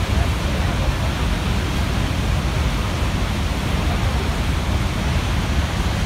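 Niagara Falls' American Falls, seen close up from its brink: a loud, deep, steady rush of falling water.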